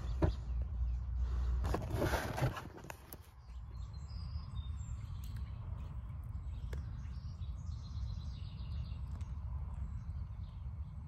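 Outdoor ambience: a steady low rumble with a few faint bird chirps. Louder rustling noise fills the first three seconds, then drops away.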